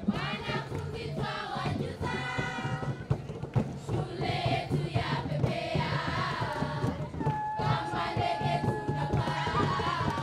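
A large group of schoolchildren singing together in chorus over a steady drum beat, with one long held note near the end.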